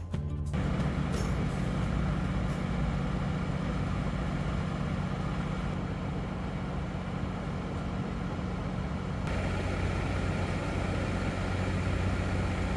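Steady hum of idling vehicle engines over a constant background noise of a highway parking area; the sound shifts slightly about nine seconds in.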